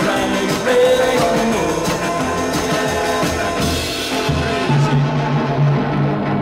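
Rock and roll band music with guitar and drums and no lead vocal line.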